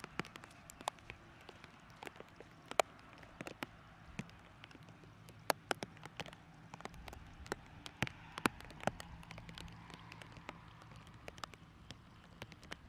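Light rain: scattered raindrops tick sharply and irregularly close by, over a faint steady hiss.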